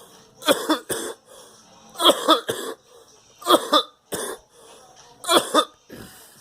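Repeated coughing in short fits of two or three sharp coughs, about five fits spaced roughly a second and a half apart.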